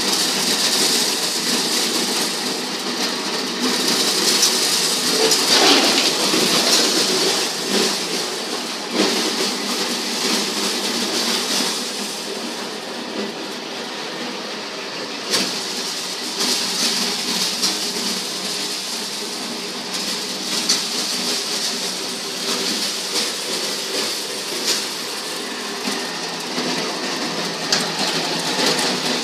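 Electric motor-driven maize sheller running, a steady mechanical clatter with irregular sharp rattles and clicks as corn cobs are fed through and stripped of their kernels.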